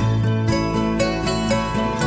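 Background music of plucked strings, banjo-like and bluegrass in style, with a steady beat.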